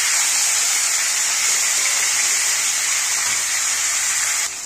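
Fish heads frying in hot oil in a steel wok: a steady sizzling hiss, which drops in level shortly before the end.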